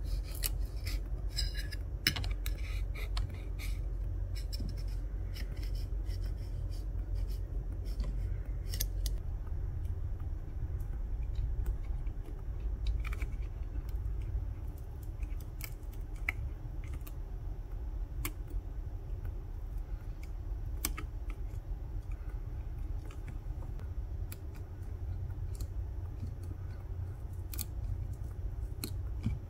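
Small metal pry tools and spudgers clicking, tapping and scraping against the parts and frame of an opened iPhone 14 Pro as the charging port assembly is worked loose. Sharp ticks come scattered throughout, thickest in the first few seconds, over a low steady rumble.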